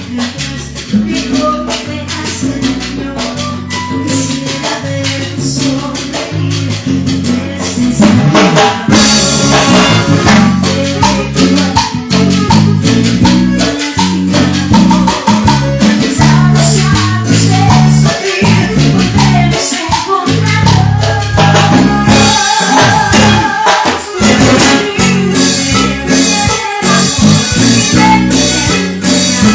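Live band playing upbeat Latin dance music, cumbia-style, with shaker and drum kit keeping a steady rhythm. The band comes in fuller and louder about eight seconds in.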